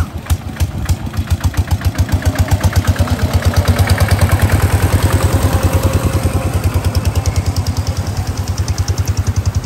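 A small engine chugging close by with an even beat of about eight pulses a second, getting louder over the first few seconds and easing off slightly near the end.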